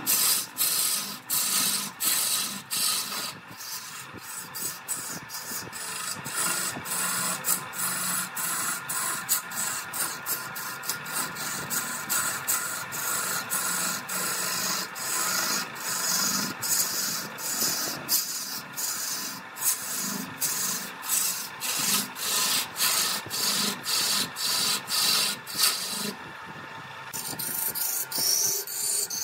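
A hand-held turning tool cutting a wooden blank spinning on a lathe: a rough scraping hiss of shavings peeling off in quick, uneven strokes. The cutting lets up briefly a few seconds before the end.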